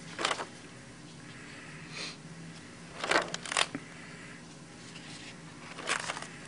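Pages of a spiral-bound sketchbook being turned one after another: about five brief paper swishes and rustles, the loudest two coming close together a little past the middle, over a low steady hum.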